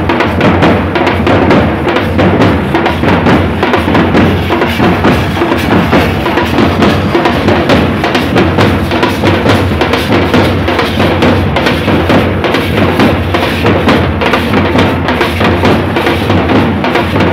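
Tasha drums and band drums played together in a loud, fast, unbroken drumming rhythm, with dense stick strokes and a deep drum underneath.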